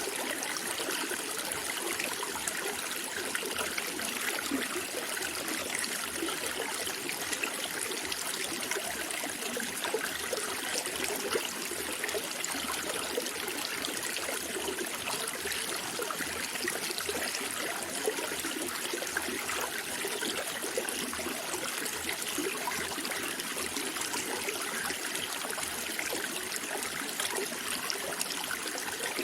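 Running water: a steady, unbroken trickling flow.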